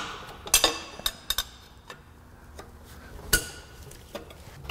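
Scattered metallic clinks and taps of a socket, extension and ratchet being fitted onto 17 mm bolts on an engine block, with one sharper click about two-thirds of the way through.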